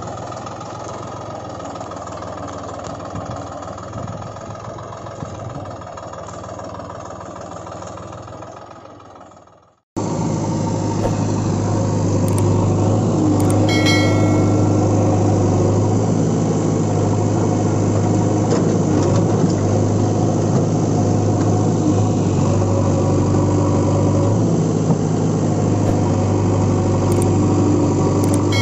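Heavy engine running steadily at an even idle-like pace. It fades away and stops about ten seconds in, then cuts straight back in louder with a strong low hum and holds steady.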